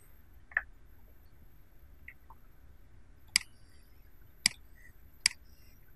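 Computer mouse button clicking: a duller click about half a second in, then three sharp clicks about a second apart in the second half.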